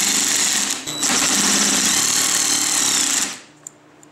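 DeWalt 20V cordless impact gun hammering a bolt through a nut to press a synchro hub onto a manual gearbox shaft. It runs in two loud bursts, with a short break just under a second in, and stops sharply near the end.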